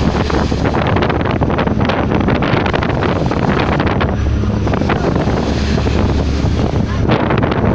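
Wind buffeting the microphone over the steady rush and splash of white water churned up along the side of a boat under way.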